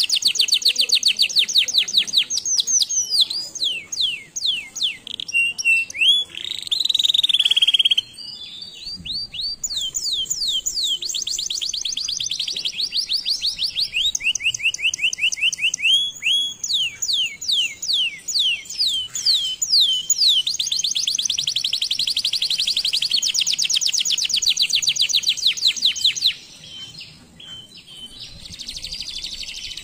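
Domestic canary singing a long song of fast trills of repeated sweeping notes, with a few held whistled notes between them, going quieter for a few seconds near the end.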